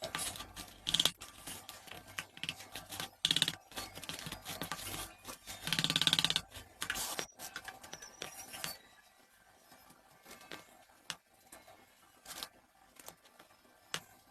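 Kitchen handling sounds: irregular scrapes and clicks with a few short rasping bursts, thinning to sparse faint clicks about two thirds of the way through.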